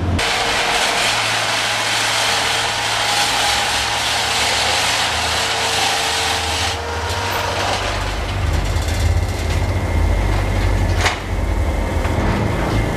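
Underground mining machinery running: a loud steady grinding hiss that gives way, about seven seconds in, to a heavier low rumble, with one sharp click near the end.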